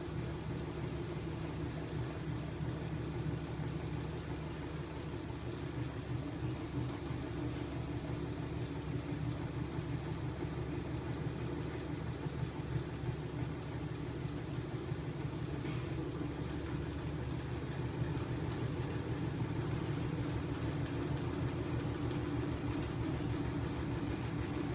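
A homemade magnet-coupled crankshaft engine running, turned by a small electric motor through magnets rather than a belt or gears. It makes a steady mechanical hum and whir from the spinning shaft and flywheel, which grows slightly louder in the last few seconds.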